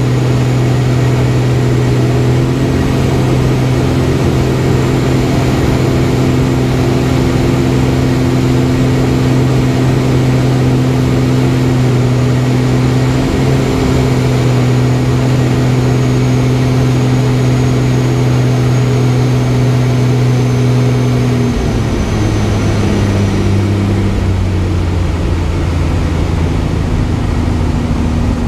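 Aerobatic plane's piston engine and propeller heard from inside the cockpit, running at a steady high power, then throttled back about 21 seconds in so the note drops lower as the plane comes down to the runway to land.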